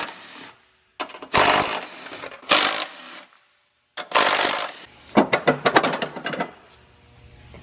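Tools working on car parts: a few short, noisy bursts of mechanical rattling, then a quick run of sharp clicks about five to six and a half seconds in, broken by two brief gaps of dead silence.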